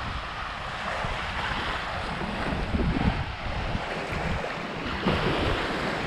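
Waves washing ashore on a beach, with wind buffeting the microphone. The wash swells about a second in and again near the end.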